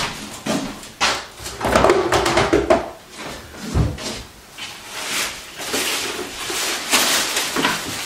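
Clatter, knocks and rustling of household items being handled and put away, with cupboard doors knocking shut and a low thump a little under four seconds in.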